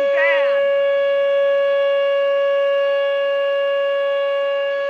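Whelen WPS 2807 electronic tornado siren sounding a loud, steady tone that holds one pitch throughout.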